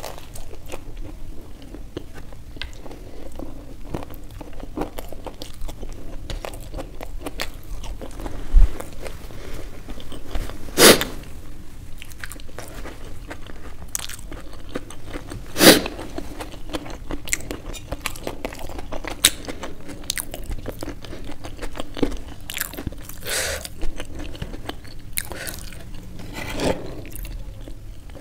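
A person biting into and chewing samosas at close range: crisp fried pastry crunching and wet mouth clicks, with a few louder sharp crunches.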